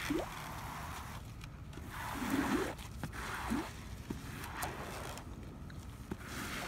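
Squeegee pushing wet asphalt driveway sealer across the pavement: a wet scraping swish with each of several strokes, the loudest about two seconds in.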